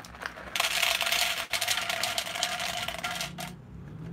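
Green coffee beans poured from a paper bag into a plastic cup, a dense rattle of beans striking the cup. It starts about half a second in and lasts about three seconds.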